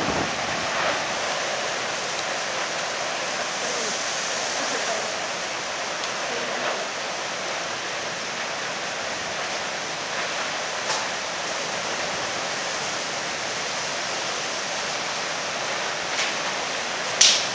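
Steady roar of storm wind and driving rain during a violent windstorm, with several brief sharp knocks, the loudest near the end.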